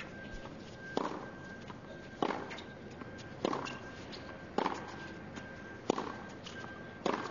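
Tennis ball struck back and forth with rackets in a baseline rally on a hard court: a sharp pock about every 1.2 seconds, six hits in a steady rhythm.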